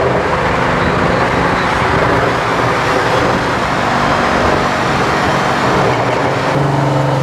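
Car engine running while driving, with steady road noise; a stronger, deeper steady drone comes in near the end.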